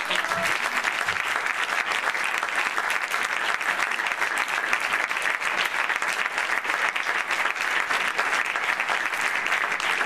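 Audience applause: many people clapping steadily.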